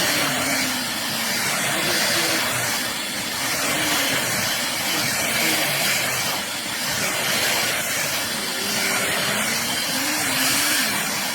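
Vazone R6X corded stick vacuum cleaner running on a rug, a loud steady rush of suction with a low motor note that wavers in pitch.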